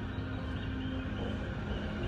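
Station platform departure melody playing in a few held notes that change pitch about one and a half seconds in, over a steady low rumble from the train standing at the platform.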